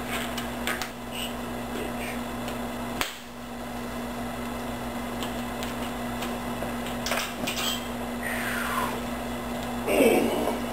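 Disposable gloves being pulled onto hands: soft rubbery rustles, small snaps and short stretching squeaks, one falling squeak past the middle and a louder rustle near the end, over a steady low electrical hum.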